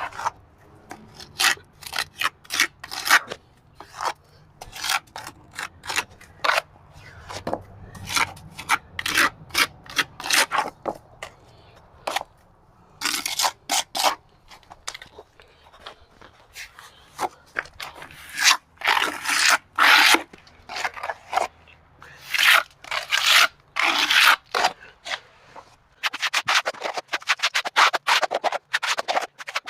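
A hand tool scraping and rubbing on a stucco wall in repeated short strokes, some longer and drawn out, quickening into rapid back-and-forth strokes near the end.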